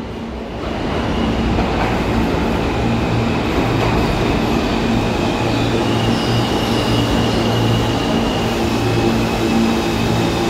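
New York City subway train (Q) pulling into the station and rolling slowly along the platform: rumbling wheels on the track with a steady motor hum, growing louder over the first second or so as it comes in. A thin high whine joins from about halfway through.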